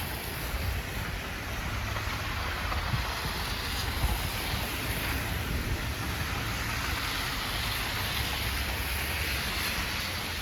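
Strong wind in a snowstorm buffeting the microphone: a steady low rumble under an even hiss.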